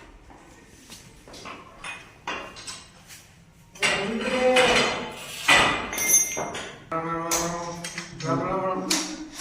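Metal clanks and knocks of power loom parts being handled and taken apart, sparse at first and busier from about four seconds in.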